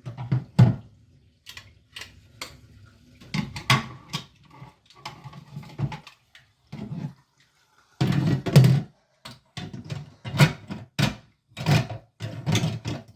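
Irregular knocks and clatter from handling a washing machine part that has just been cleaned.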